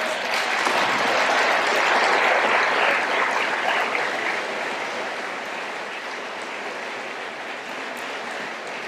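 Lecture-hall audience applauding, swelling over the first couple of seconds and then slowly tapering off.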